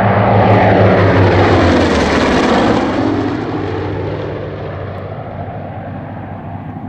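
Two P-47 Thunderbolts' Pratt & Whitney R-2800 radial engines and propellers flying past. The engine note drops in pitch as they go by, then fades after about three seconds.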